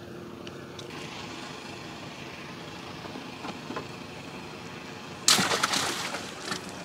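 A boat's engine running in the background with a steady hum, then a sudden burst of splashing water about five seconds in that lasts about a second, as a netted fish thrashes at the surface.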